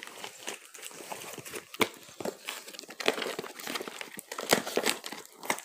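Cardboard box being opened and handled by hand: irregular crinkling and scraping with many small sharp clicks and knocks.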